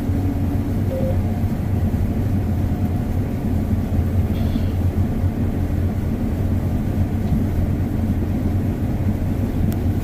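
Combine harvester running while cutting wheat, heard from inside its cab: a steady low engine and machinery drone, with the combine unloading grain on the go into a grain cart pulled alongside.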